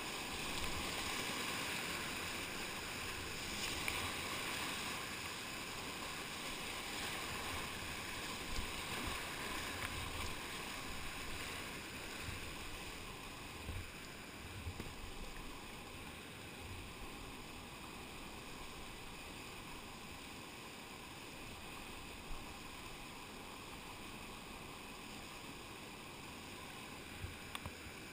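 Rushing whitewater of a boulder rapid, heard from the kayak, louder for the first ten seconds or so and easing to a steadier, quieter rush as the boat reaches calmer water. A few short low thumps come through now and then.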